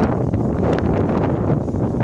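Strong storm wind blowing across the microphone: a constant loud rumble broken by many short crackles.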